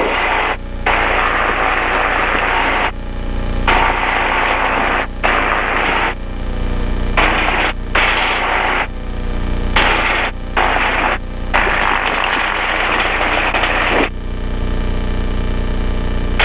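Two-stroke engine of a Buccaneer II ultralight running as it taxis, picked up through the intercom mic, which has no noise cancelling set. A steady low drone runs underneath. Loud, harsh engine noise cuts in and out abruptly about nine times as the mic's gate opens and closes.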